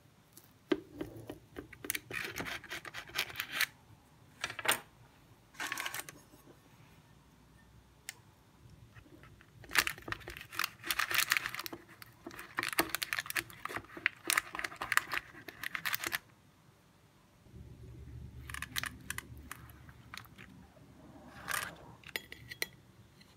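Knife and metal cake server cutting through a baked cheesecake's crust and scraping and rustling on the parchment paper beneath, in several bursts, the longest in the middle. From about three quarters through, a low steady hum comes in under it.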